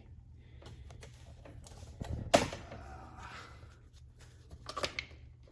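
Hard plastic clicks and clatter from a single-serve coffee maker's top being released with its push button and opened for a K-cup. There is one sharp loud click a little over two seconds in, and a few smaller clicks near the end.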